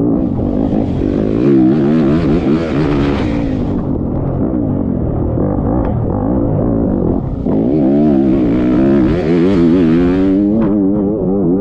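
Off-road motorcycle engine running hard under a constantly changing throttle, its pitch rising and falling over and over. Two long spells of hiss lie over it, in the first half and again near the end.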